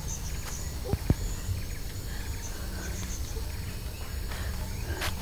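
Forest ambience: faint high chirping from wild creatures over a steady low rumble, with two short low knocks about a second in.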